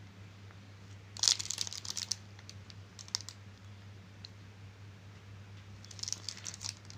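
Handling noise as a new keyboard and its cable are unpacked: packaging crinkling and light clicks, in a spell starting about a second in and again near the end.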